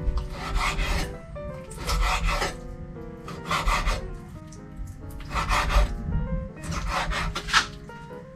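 A kitchen knife sawing back and forth through raw beef, making a rasping sound in about five drawn strokes, roughly a second and a half apart.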